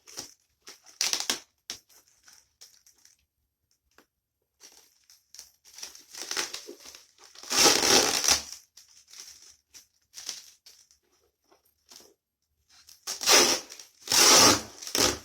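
Parcel packaging being torn and crumpled in irregular bursts as a tightly packed box is forced open, with the longest, loudest ripping in the middle and near the end.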